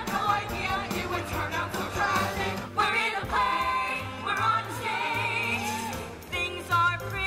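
A young musical-theatre cast singing a number together as an ensemble, with instrumental accompaniment and a steady bass line.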